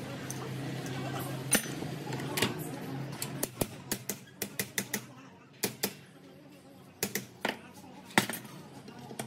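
Irregular sharp taps and clicks of metal hand tools working on a starter motor armature, about fifteen over several seconds and quickest in a run near the middle. A steady low hum sounds under the first half, then fades.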